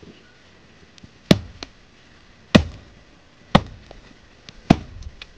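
Machete chopping: four sharp blows about a second apart, with a few lighter knocks between them.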